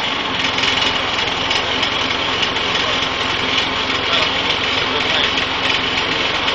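An engine running steadily under a constant noisy hiss, its level unchanging throughout.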